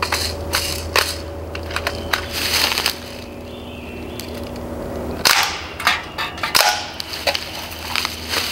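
Umarex Steel Strike CO2 BB rifle firing: sharp shots, some in rapid bursts, in two strings with a quiet gap of about two seconds between them.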